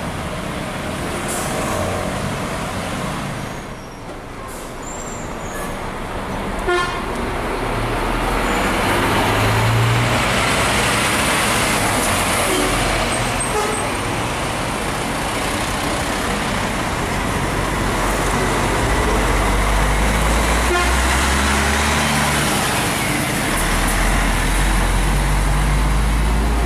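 Heavy diesel engine of a Scania double-decker coach running amid street traffic, with a vehicle horn tooting. The low engine rumble grows heavier in the last third as the coach pulls along the street.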